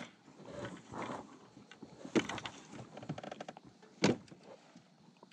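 Gear being handled in a plastic kayak: three sharp knocks, at the start, a little after two seconds in and about four seconds in, with a quick run of small clicks and soft rustling between them.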